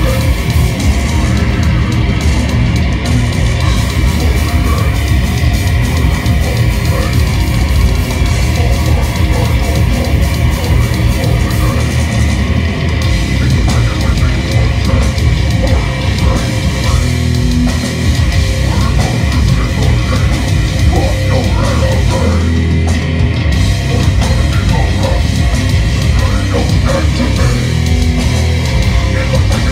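Death metal band playing live: distorted guitars and bass over dense drumming, loud and continuous.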